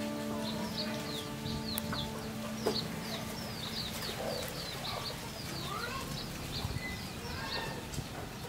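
Chickens: rapid high-pitched peeping, about four or five short chirps a second, with a few lower clucking calls around the middle.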